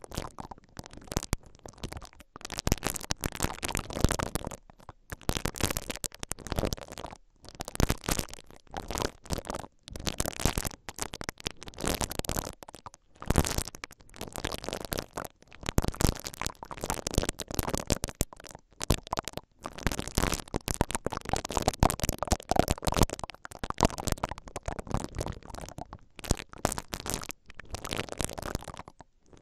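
Silicone bristle ear-cleaning brushes rubbed and twisted against the mesh grilles of a stereo microphone's two capsules, giving a close, dense scratchy crackle. It comes in slow strokes with short pauses between them.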